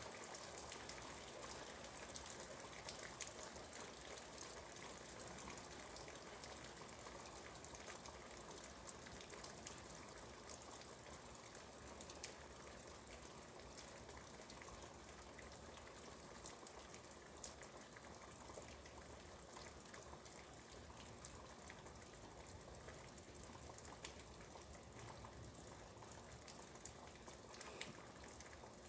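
Steady rain falling, a faint even hiss with scattered small drip ticks.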